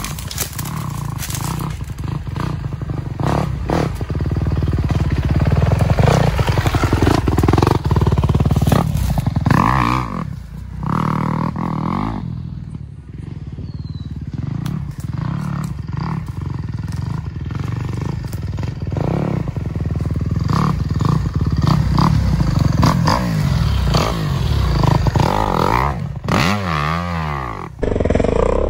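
A dirt bike's engine running and revving up and down as throttle changes, with a quieter off-throttle stretch about twelve seconds in and a sharp rise and fall in revs near the end. Brief knocks and rattles from the bike run through it.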